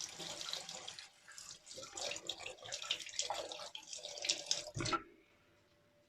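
Tap water running and splashing into a sink, uneven and splashy, stopping abruptly about five seconds in.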